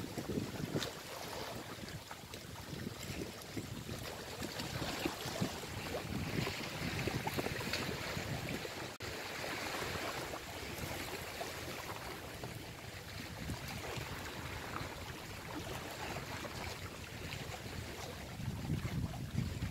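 Wind buffeting the microphone, with sea waves washing against rocks.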